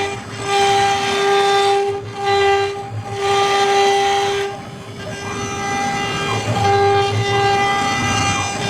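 High-speed CNC router spindle whining at a steady high pitch while it carves wood. The whine and the cutting hiss come and go in stretches of about a second as the tool moves through its passes.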